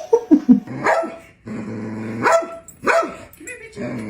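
A dog vocalizing. It gives a quick run of short falling yelps near the start, then a longer low sound, then two sharp barks about two and three seconds in.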